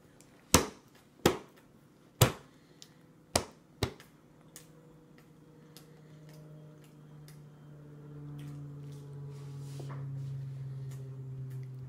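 A baby's hand slapping a plastic high-chair tray: five sharp smacks in the first four seconds, then lighter taps and clicks. A low steady hum grows louder through the second half.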